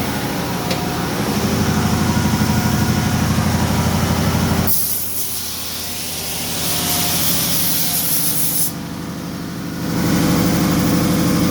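Laguna 37-inch wide belt sander running with its conveyor table on, a steady machine hum, while a 16-gauge steel sheet is fed through to sand off the black scale. A loud hiss cuts in about five seconds in and stops about four seconds later.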